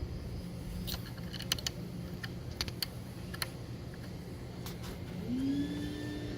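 Light metallic clicks and taps of small bolts and an Allen wrench being handled and fitted while a brake caliper is mounted to its bracket, over a steady low hum. Near the end, a tone rises and then holds steady.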